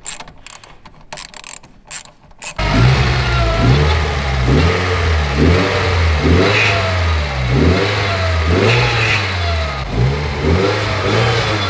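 A ratchet clicks as the bolts of a blow-off valve are tightened. About two and a half seconds in, the sound cuts to the turbocharged four-cylinder engine of a Mitsubishi Lancer Evolution VIII, built on an Evo 6 block, running loudly and being revved up and down over and over.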